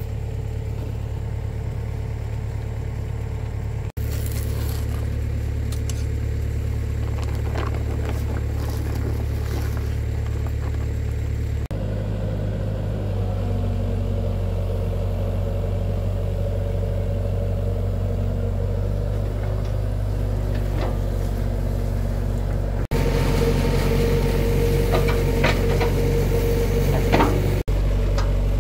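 Hydraulic excavator's diesel engine running steadily, with scattered knocks and clatter of crushed stone as the bucket works the rock.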